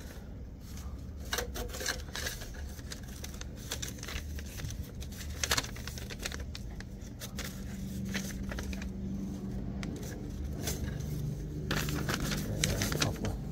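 A sheet of paper being sliced between the reel blades and bed knife of a freshly sharpened Webb push reel mower, the reel turned by hand. It makes a run of short snips and paper crinkling, the paper cut test showing a sharp cutting edge.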